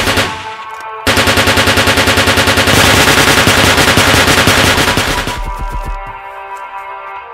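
Rapid automatic machine-gun fire sound effect, a long burst starting about a second in and fading out near the end, over background music.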